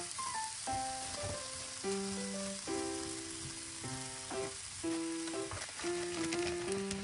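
Pieces of pork sizzling as they fry in a small pan on a gas stove, an even hiss throughout. Background music with held melodic notes plays over it.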